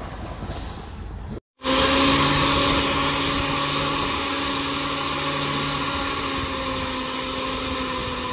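Sand-dredging crane hoisting its clamshell grab bucket: a loud, steady machine drone with a high whine, starting after a brief break about a second and a half in.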